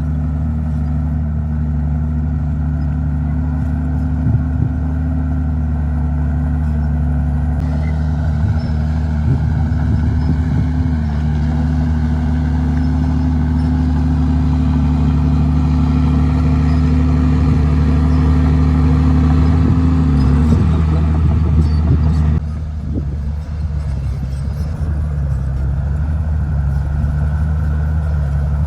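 Komatsu D51PX bulldozer's diesel engine running steadily under load while pushing dirt; near the end its pitch falls and the sound drops abruptly, as the engine eases off.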